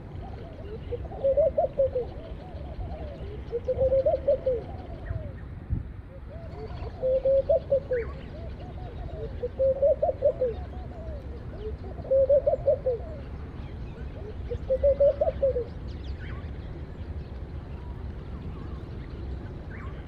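A dove cooing: a soft, bubbling phrase of several quick notes, repeated six times about every two and a half seconds, then stopping.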